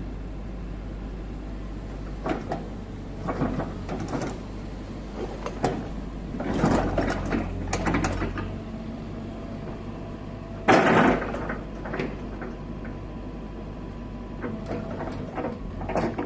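Kobelco SK135SRD excavator's diesel engine idling steadily, with a series of clunks and knocks over it. The loudest knock comes about eleven seconds in.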